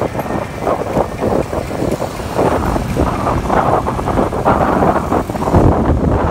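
Wind buffeting the microphone of a road bike at speed, about 30 km/h, in irregular gusts.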